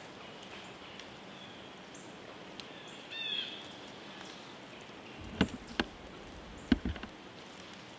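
Quiet autumn woods. A bird gives one short chirping call about three seconds in. In the second half come a few crunching steps in dry leaf litter, the loudest sounds, typical of a deer walking close by.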